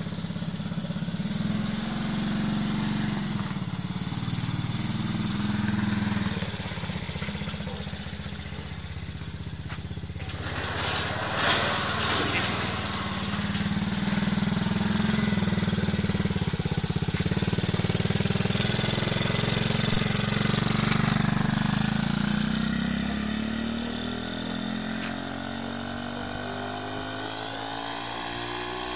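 Homemade go-kart's small engine running, its speed rising and falling, with two sharp knocks around seven and eleven seconds in. Over the last few seconds its pitch climbs steadily.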